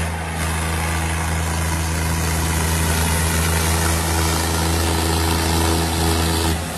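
Diesel tractor engine running hard at steady revs in a tractor tug-of-war, pouring black smoke under load, with a loud, even drone. The drone drops away sharply near the end.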